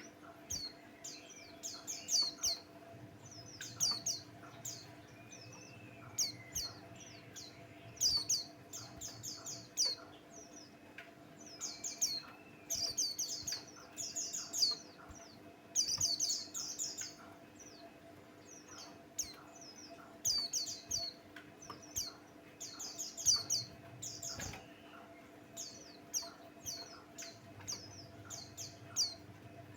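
White-eye singing in repeated bursts of quick, high chirping notes, a burst every second or two. A faint steady hum runs underneath.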